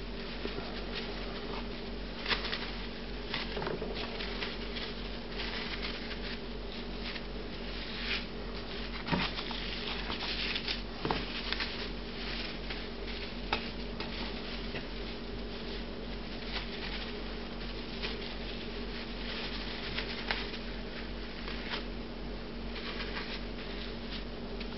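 Plastic cling film crinkling and crackling in irregular bursts as it is rolled tightly around a meat roll by hand, over a steady low hum.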